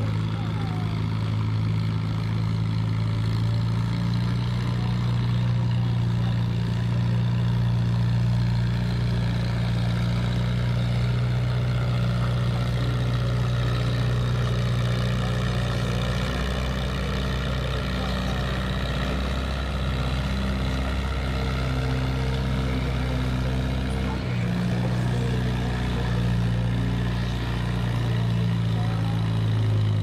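Farmall Super M tractor's four-cylinder engine running hard under load while pulling a weight sled, a loud steady deep drone. Its pitch shifts about 16 seconds in and again about 24 seconds in.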